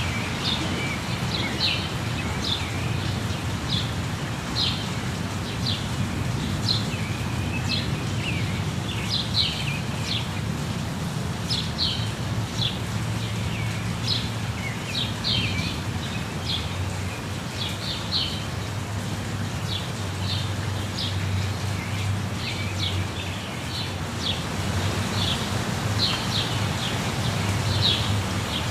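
Steady rush of a jungle waterfall, with birds chirping over it in short high calls about once a second.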